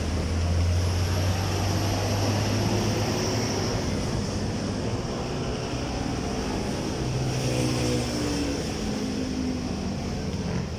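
Road traffic on a multi-lane highway: vehicles passing steadily, with a heavy engine's low drone strongest in the first few seconds and other engines rising and falling in pitch as they go by later.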